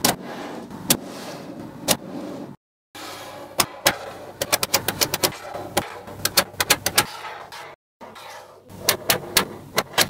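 Small magnetic balls clicking as they snap together one by one: single sharp clicks about once a second, then a quick irregular run of clicks, broken twice by brief dead silences.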